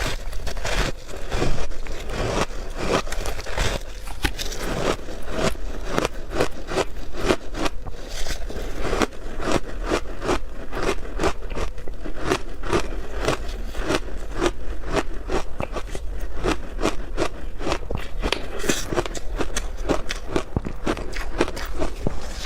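Ice being bitten and chewed close to the microphone: a steady run of crisp crunches, about four a second, over a low steady hum.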